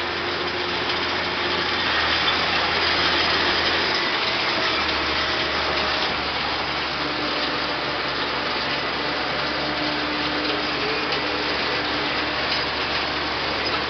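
Allis-Chalmers farm tractor's diesel engine running steadily while pulling a seed drill across a field.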